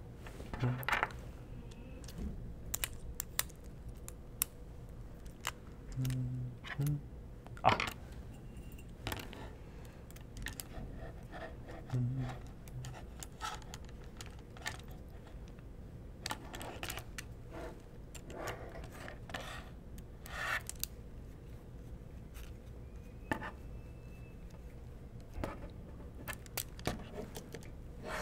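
Small clicks, taps and light scrapes of hands fastening M3 screws, washers and nylon lock nuts into a 3D printer's bed assembly, with faint clinks of the small metal hardware, scattered irregularly throughout.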